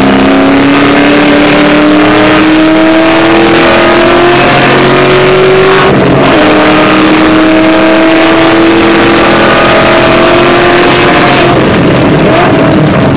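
Supercharged Shelby GT500 V8 with long-tube headers at full throttle, heard from inside the cabin, its note climbing steadily in pitch. About six seconds in it drops briefly for an upshift, then climbs again until the rising note breaks off near the end.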